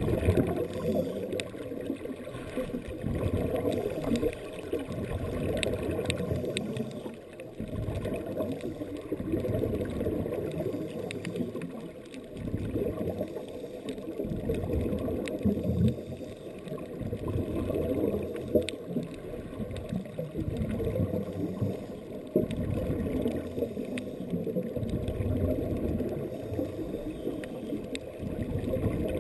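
Muffled, dull underwater water noise, swelling and fading every few seconds.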